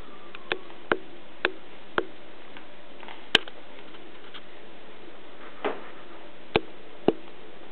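Baby sucking and smacking on its fingers: a run of about eight short, sharp clicks at uneven intervals, the loudest about three and a half seconds in, over a steady hiss.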